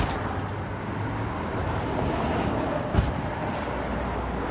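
Street traffic: a vehicle passes with a steady rush that swells toward the middle. There is a single sharp thump about three seconds in.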